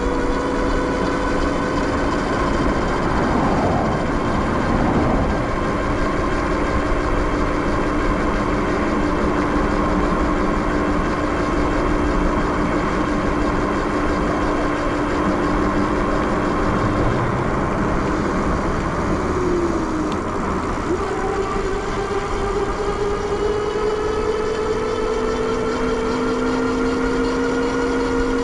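Electric bike's motor whining steadily while riding, its pitch drifting slightly with speed, over a constant rush of wind and tyre noise.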